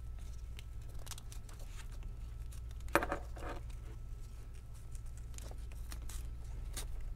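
Nylon sling webbing rustling and scraping as it is worked by hand back over a tri-glide buckle, with scattered faint clicks of the hardware and one sharper knock about three seconds in.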